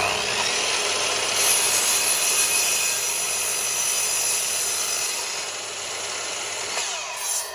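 Makita LS1012 sliding compound miter saw running and cutting through a hard wooden handle, a steady loud whine of motor and blade in the wood. Near the end the blade winds down and the sound drops away.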